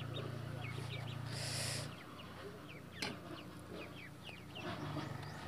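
Birds chirping in the background, short falling calls repeated again and again, over a steady low hum that stops about two seconds in and comes back near the end.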